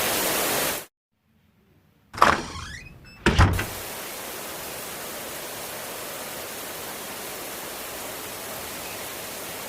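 Steady rush of flood water that cuts off abruptly under a second in. After about a second of silence comes a sudden swishing sound that slides in pitch, then a low thud. A quieter steady rush of water follows.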